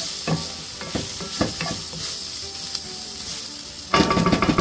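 Diced onions, bell peppers and jalapeños sizzling in oil in a skillet as they sauté, the onions turning translucent. A wooden spoon stirs them, knocking against the pan a few times. About four seconds in the stirring turns to a louder burst of scraping.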